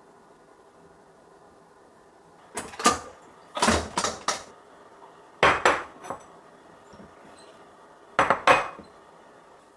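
Ceramic dishes and a pot being set down and handled on a kitchen counter: four short bursts of clinks and knocks.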